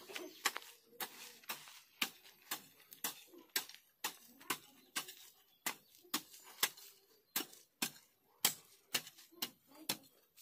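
Grass and weeds being cleared from a field by hand: irregular sharp snaps and crackles, about two or three a second.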